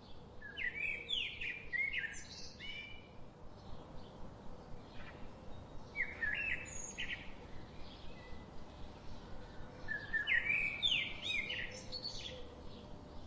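Songbird singing: three bouts of quick, bright chirping phrases near the start, about six seconds in and about ten seconds in, with softer calls between them.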